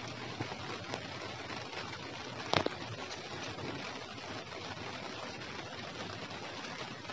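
Light rain falling steadily, an even hiss, with one sharper tap about two and a half seconds in.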